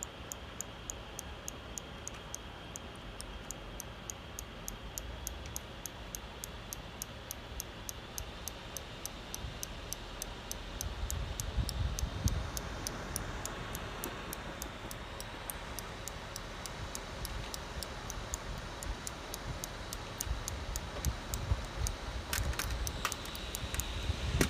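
Gigabyte Aero 15 OLED laptop cooling fan running with a faint steady whine and a regular ticking, about three or four ticks a second. It is an abnormal fan noise that the owner finds goes away when the laptop lies flat. A louder low rumble comes about halfway through.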